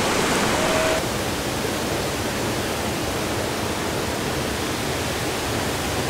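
Steady rushing of a waterfall and stream, a continuous even roar of falling water.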